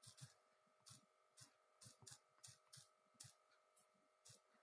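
Faint, irregular taps of a finger typing a name on a phone's touchscreen keyboard, about a dozen short clicks, over a faint steady hum.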